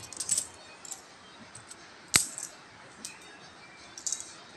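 Philippine peso coins clinking as they are picked up and slid one by one from a pile on a cloth-covered table: scattered light clicks, the sharpest about two seconds in.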